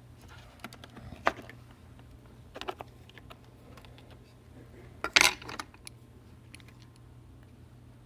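Light clicks and metallic clinks of small repair tools being handled and set down on the workbench: a sharp click about a second in, a few more near three seconds, and a louder cluster of clinks about five seconds in.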